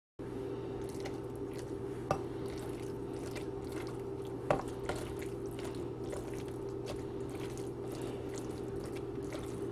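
A bare hand squishing and mashing boiled potato with fried onions and chilies for bhorta on a stainless steel plate: soft wet squelches and small ticks, with two sharper ticks about two and four and a half seconds in, over a steady low hum.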